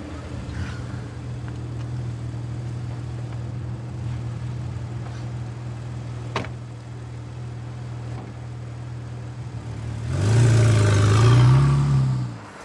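A sports car's engine idling steadily, a single sharp knock about six seconds in like a car door shutting, then the engine revving loudly with its pitch rising and wavering as the car pulls away, fading just before the end.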